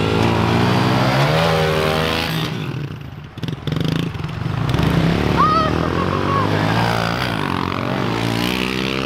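Small four-stroke pit bike engines revving hard as the bikes launch and accelerate, the pitch rising and falling with throttle and gear changes. The sound drops away briefly about three seconds in, then engines rev up again.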